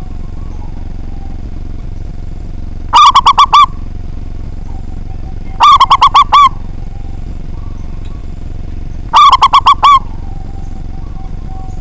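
Zebra dove (perkutut) cooing: three loud bursts, each a quick run of four or five pulsing notes lasting under a second, a few seconds apart, over a steady background hiss.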